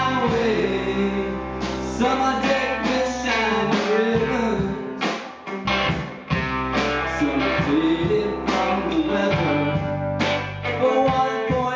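Live rock band playing a song: electric guitars and a drum kit, with a man singing over it in places. The low end drops out briefly around the middle before the full band comes back in.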